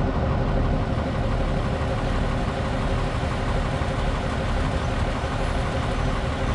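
Diesel locomotive engine idling, a steady low running sound with a faint hum.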